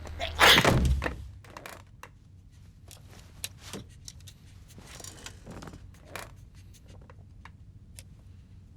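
A man's loud sneeze about half a second in, a short noisy burst, followed by faint rustling and a few small clicks and knocks.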